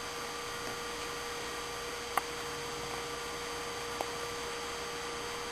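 Steady electrical hum with hiss, several fixed tones at once, broken by two small clicks about two seconds and four seconds in.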